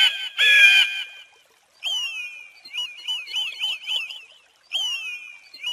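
Eagle calling: two high, harsh calls, then a falling note that runs into a quick series of short chittering notes at about five a second, with the falling note and chittering starting again near the end.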